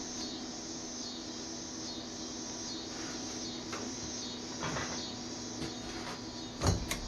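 Steady machine hum with a few knocks and clunks of handled metal, the loudest near the end.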